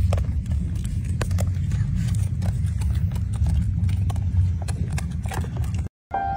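A steady low rumble with scattered sharp clicks and taps through it. It cuts out abruptly near the end.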